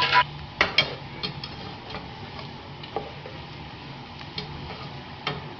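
Sliced onions frying in hot oil with whole spices in a pot: a steady sizzle with a few sharp clinks and scrapes of a spoon stirring against the pot.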